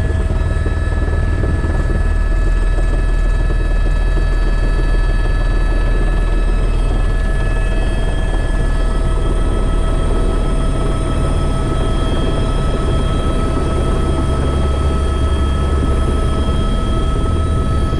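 Helicopter heard from inside its cabin: a steady low rotor thrum under a constant turbine whine as it descends and sets down.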